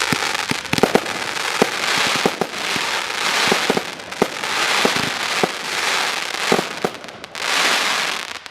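A 16-shot 25mm consumer firework barrage firing: a quick series of sharp bangs, about two a second, with swells of crackling hiss between them.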